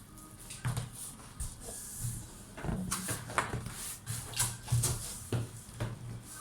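Unpacking a microwave oven from its packaging: irregular rustling, scraping and knocking of packaging and the oven being handled, several short noises a second.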